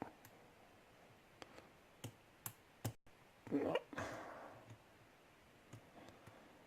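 A lock pick and tension tool working the pins of a pin-tumbler challenge lock: scattered small clicks and ticks of metal on metal, with a louder scratchy burst about three and a half seconds in.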